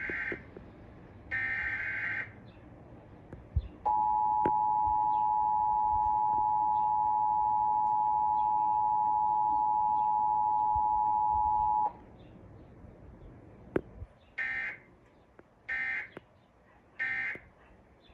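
Emergency Alert System signalling. The first sound is the end of the SAME header, two short screeching digital data bursts about a second apart. Then comes the steady two-tone EAS attention signal (853 and 960 Hz), held for about eight seconds. Three short end-of-message data bursts close the sequence.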